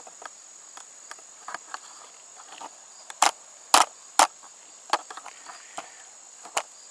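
Scattered sharp cracks and snaps of wood, three louder ones in quick succession around the middle, over a steady high insect trill.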